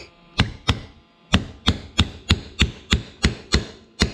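Hammer tapping a steel pin punch to drive a new roll pin into the locating hole of a Warn free-wheeling hub: about a dozen sharp blows, roughly three a second, with a short pause about a second in.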